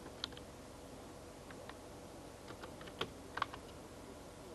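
A few scattered keystrokes on a PC keyboard as numbers are typed in, faint, with the loudest clicks about three seconds in.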